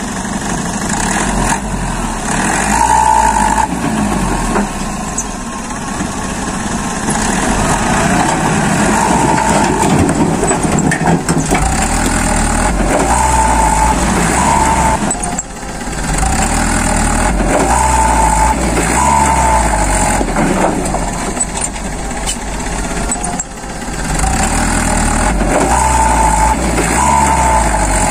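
Truck engine sound running steadily, with short higher tones recurring every few seconds.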